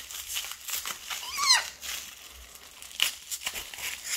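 Packaging crinkling and rustling as an item is pulled out of it, with a short squeak about a second and a half in and a sharp click about three seconds in.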